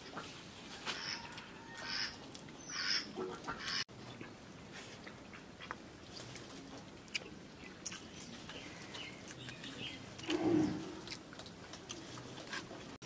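Hands mixing and eating rice from steel plates, with scattered light clicks and chewing. Birds chirp a few times in the first few seconds, and there is one short, louder low sound about ten seconds in.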